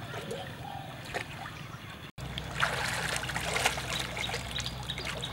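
River water splashing and sloshing as people wade and move a large bamboo fish trap through it. The sound breaks off briefly about two seconds in, and the splashing is louder after that.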